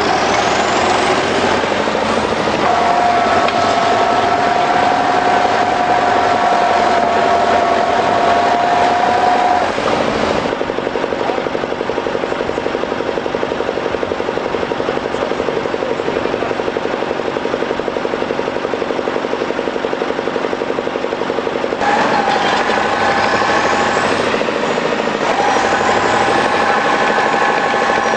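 Diesel engines of a crawler tractor and a wheeled tractor running hard under load while stuck in mud. A steady high whine rides over the engine sound from about three to ten seconds in and again near the end.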